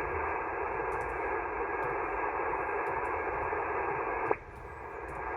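HF ham radio receiver hiss on the 15-meter band, a steady static squeezed into the narrow single-sideband passband, heard while the frequency is open for another station to transmit. It cuts off with a click a little past four seconds, leaving a fainter hiss.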